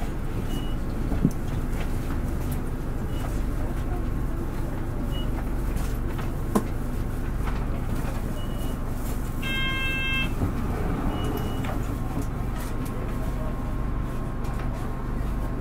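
Nissan Diesel Space Runner RA city bus's diesel engine running steadily, heard inside the passenger cabin. A short electronic chime sounds about ten seconds in.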